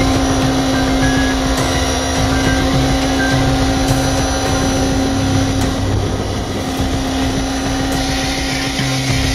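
Qualcast electric pressure washer running steadily, its motor and pump giving a constant-pitched hum, with the hiss of the spray hitting the motorcycle.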